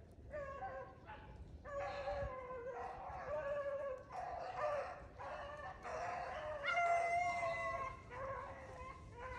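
A pack of beagles baying as they run a rabbit's track: several dogs' long, drawn-out bawls overlapping and following one another, with short breaks.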